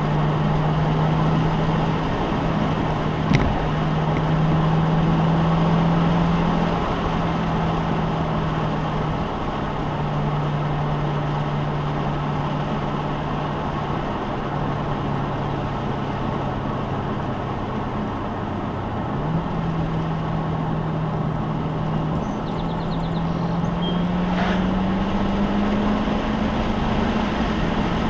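Car engine drone and road noise heard while driving: a steady engine note that drops and jumps in a few steps, then climbs steadily near the end as the car accelerates.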